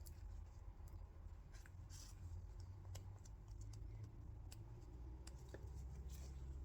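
Faint, scattered small clicks and light scraping as epoxy is spread onto a lock pick's acrylic handle scales and steel, over a low room hum.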